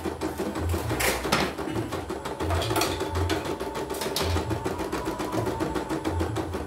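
CNY home embroidery machine stitching a design, its needle going in a rapid, even run of strokes.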